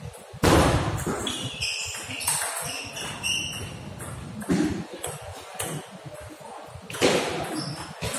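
Table tennis ball being struck and bouncing: a loud hit about half a second in, then a run of short high pings as the ball bounces, and another sharp knock about seven seconds in.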